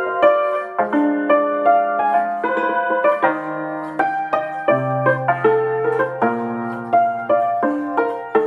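Țambal (concert cimbalom) played with a pair of wooden hammers: quick runs of struck notes in a classical sonata, each note ringing on, with lower notes sustaining underneath.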